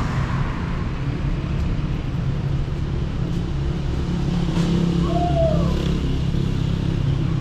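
Steady low rumble of road traffic running on the city street, with a short tone that falls in pitch about five seconds in.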